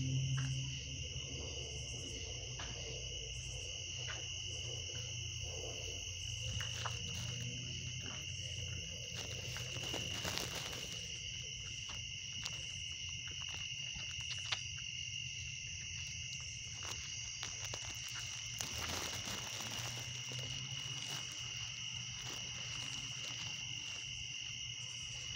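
Chorus of night insects trilling steadily at two high pitches. A low rumble sits under it during the first third, and a few brief clicks come through.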